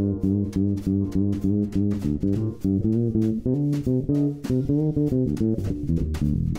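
Background music: an instrumental track of plucked guitar and bass with a steady beat.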